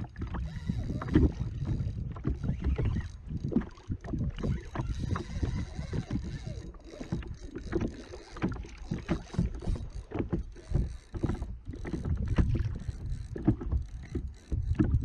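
Irregular knocks, clicks and water noise from a fishing kayak and its tackle while a hooked fish is being played, over a steady low rumble.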